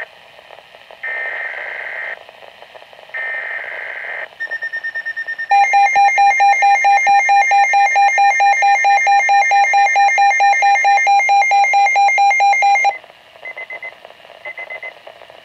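Weather radio emergency alert signal. It opens with three buzzy digital data bursts of about a second each, the coded header that marks a severe weather bulletin. Then a loud, rapidly pulsing alarm tone sounds for about seven seconds and stops suddenly, followed by a few short faint beeps.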